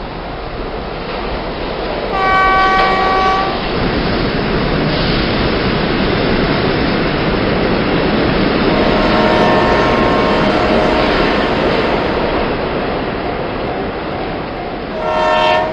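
Train running with a steady, dense rumble, sounded three times by its horn: a blast about two seconds in lasting about a second and a half, a longer one around nine seconds in, and a short one near the end.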